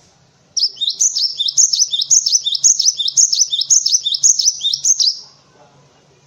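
Cinereous tit (gelatik batu) singing a fast, loud series of repeated high two-note phrases, about two a second. The song starts about half a second in and stops about 5 seconds in.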